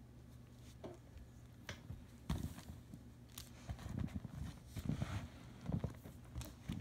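Handling noise: irregular soft knocks, taps and light rustles of hands working with insulated wires and small tools, busier from about two seconds in.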